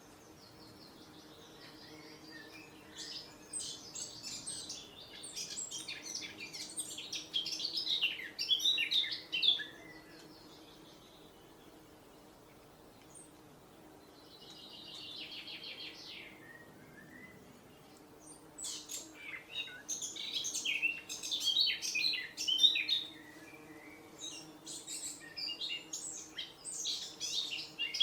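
Songbird singing in long, rapid, jumbled phrases of high chirps, with a short even trill in the pause midway, over a faint steady hum.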